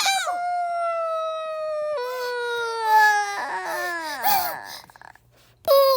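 A person's voice in a long, drawn-out wail that slowly falls in pitch, breaking about two seconds in and trailing off after about four and a half seconds, then a short falling cry near the end: part of an exaggerated, acted giant sneeze.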